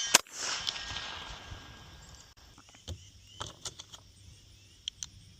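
An airsoft pistol fires one sharp shot just after the start, followed by a hiss that fades away over about two seconds. A few faint light clicks follow.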